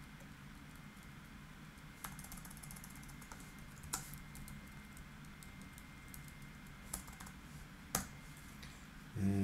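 Soft typing on a computer keyboard: light key clicks at an uneven pace, with a few sharper key presses spaced a second or more apart. A short low hum comes in near the end.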